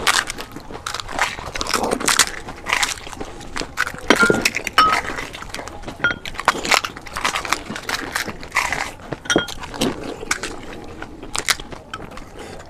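Crisp fried puri shells being cracked open and crunched during pani puri eating, a rapid, irregular run of sharp cracks and chewing crunches.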